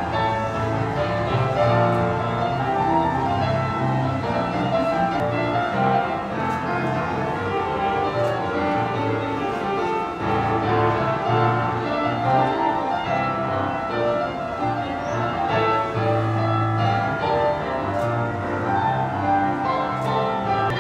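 Upright street piano played four hands by two players: a continuous duet of dense chords over a steady bass line.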